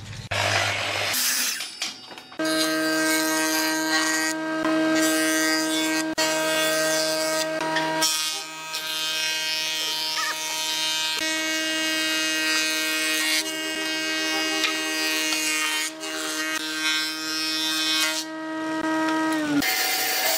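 Woodworking machines running and cutting pine boards, a sliding miter saw and a thickness planer: a steady motor whine with the rasp of the cut over it. After a quieter couple of seconds the machine noise starts, the sound shifts about eight seconds in, and the motor winds down near the end.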